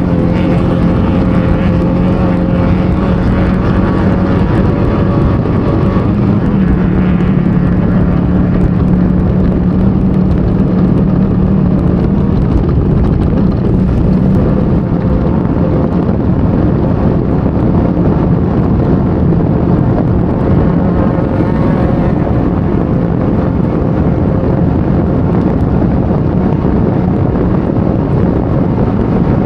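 Off-road race car's engine running hard at fairly steady revs, heard from onboard over a loud, constant rushing noise. The revs rise slightly about six seconds in.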